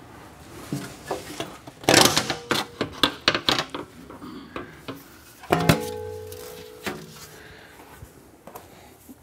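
Clattering and knocking as a car's underbody panel is worked loose and taken down by hand, then a single metal clank about five and a half seconds in that rings on for a second or so.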